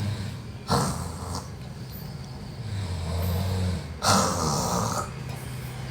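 A sleeping person snoring: a low buzzing snore lasting about a second, followed by a short breathy rush of air, the cycle coming round about every three and a half seconds.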